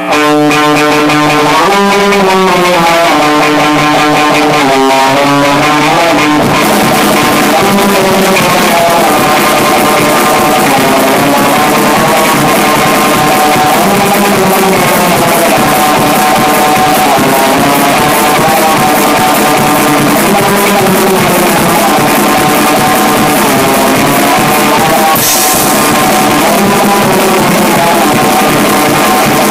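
Loud rock jam: guitar notes sliding up and down at first, then drums and cymbals join in about six seconds in and the guitar and drums play on together.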